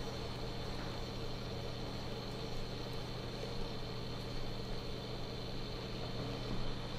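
A steady low mechanical hum with a faint high whine above it, unchanging: room tone.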